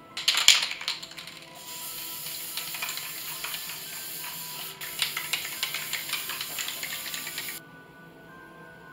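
Aerosol spray-paint can: a short burst of rattling as the can is shaken, then a steady hiss of spraying for about six seconds with rattles over it, cut off suddenly. Background music plays throughout.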